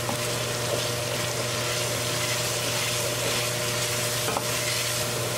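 Thick onion-tomato masala sizzling and frying in an enamelled pot while a wooden spoon stirs it round the bottom. A steady low hum runs underneath.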